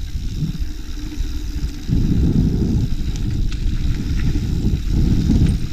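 Wind buffeting and rumble on a GoPro action camera's microphone while a mountain bike rolls along a dirt trail, getting louder about two seconds in, with a few faint light clicks and rattles from the bike.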